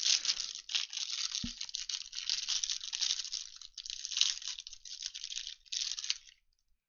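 Plastic wrapping on trading card packs being torn and crinkled open in quick bursts, with one brief soft thump about a second and a half in. The crinkling stops shortly before the end.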